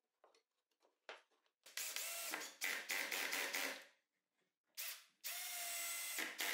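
Cordless drill-driver sinking screws into plywood frame pieces. One run of about two seconds with a short break partway, a brief blip, then a second run of about a second and a half, each with a steady motor whine.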